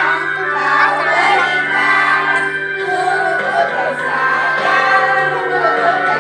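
A preschool children's choir singing together over steady musical accompaniment.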